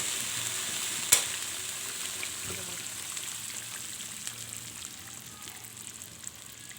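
Chicken curry sizzling in the pan, with one sharp click about a second in as the gas stove is switched off; the sizzle then slowly dies away as the heat goes.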